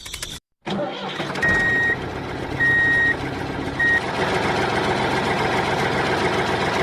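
Vehicle reversing alarm beeping three times at a steady high pitch, the last beep cut short, over the steady running noise of an engine or motor.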